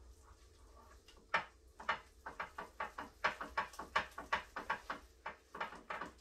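Wooden spoon beating thick microwave chocolate fudge in a bowl: a rapid run of knocks and scrapes, about four or five a second, starting about a second in.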